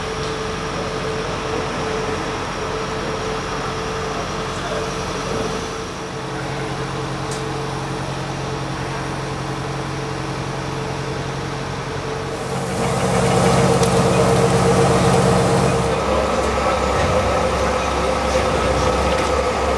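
Heavy diesel engine of a mobile crane running steadily under load while it hoists a tracked excavator, getting louder from a little past halfway for a few seconds.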